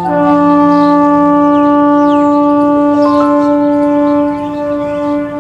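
Background music: a loud held chord of sustained tones like a wind instrument or synth pad, shifting notes about three seconds in and fading near the end.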